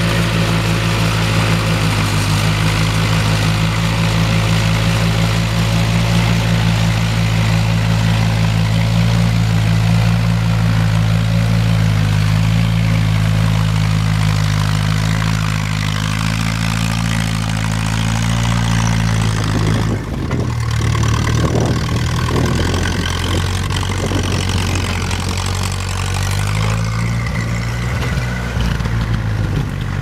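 Ferguson TE-A tractor's four-cylinder petrol engine running steadily under load while pulling a plough. About two-thirds of the way through, the note changes suddenly to a rougher, less even engine sound.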